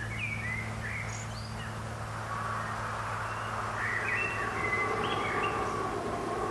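Small birds chirping in short, quick calls over a steady low hum and background hiss.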